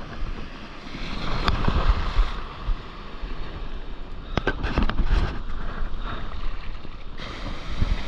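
Waves breaking and surf washing around a camera held at the water's surface, with wind rumbling on the microphone. Sharp splash knocks come about a second and a half in and again several times around four to five seconds in.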